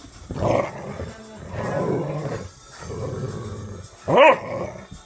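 Dogs play-growling at each other in rough stretches, with one sharp bark about four seconds in.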